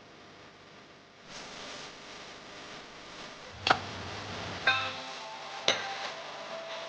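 Hammer striking metal three times, about a second apart, with a brief metallic ring after each blow.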